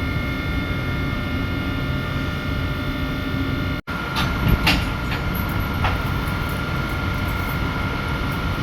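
Passenger locomotive standing in the station: a steady hum with constant high-pitched whining tones. The sound drops out abruptly a little under four seconds in, then resumes with a few sharp knocks in the next two seconds.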